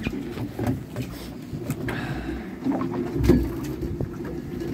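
A fishing boat's motor running with a steady hum, with scattered knocks and a louder bump about three seconds in from deck handling.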